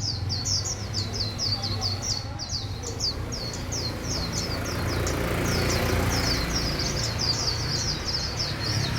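Songbirds chirping in a fast, unbroken run of short, high, falling chirps, about four a second, over a steady low rumble.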